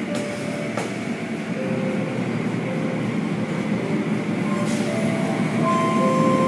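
Automatic tunnel car wash heard from inside the car: a steady rush of water spray and cloth mitter curtains washing over the roof and windshield, with the wash machinery running. It grows louder toward the end, and a single knock comes about a second in.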